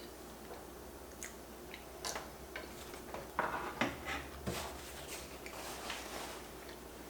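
Close-up eating sounds of someone chewing a mouthful of pancakes with sticky peanut butter sauce: a scatter of wet mouth clicks and smacks, busiest and loudest around the middle.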